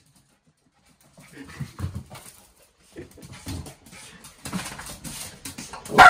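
Miniature schnauzer panting in excitement as it greets its owner, with a short, sharp bark near the end.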